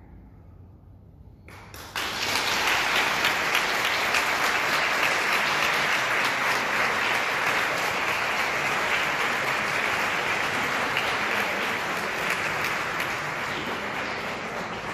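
A short hush, then audience applause breaks out about two seconds in and carries on, easing slightly near the end.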